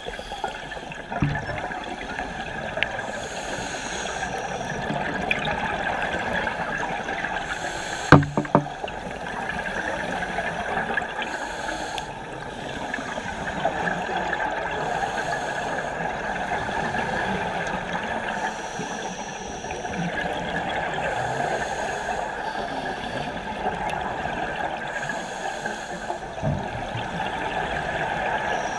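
Underwater ambience picked up by a GoPro in its dive housing: a steady muffled rush, with a scuba diver's regulator breaths hissing roughly every four seconds and exhaled bubbles gurgling. A few low knocks stand out, the loudest about eight seconds in.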